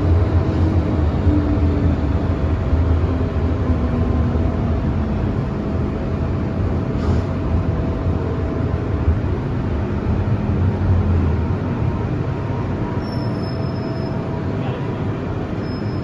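Inside an MTR M-train rolling slowly alongside a station platform: a steady low rumble of wheels and running gear with faint steady whine tones, easing off as the train comes to a stop. Two brief high squeals near the end.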